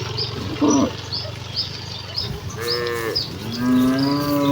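Cattle mooing: a short low moo about half a second in, another a couple of seconds later, then a long, louder moo near the end. Short high chirps repeat faintly in the background.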